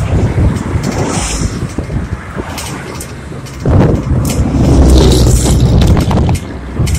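Wind buffeting the microphone and clicks and rattles from a bicycle ridden slowly along a road. The rumble grows louder about halfway through and eases just before the end.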